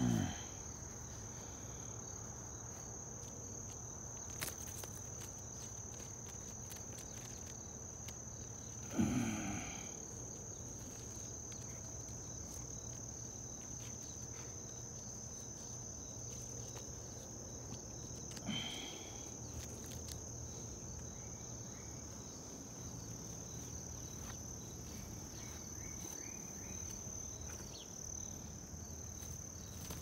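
Insects trilling in one steady, unbroken high-pitched drone. Three brief, louder sounds with falling pitch break in: near the start, about nine seconds in (the loudest), and about eighteen seconds in.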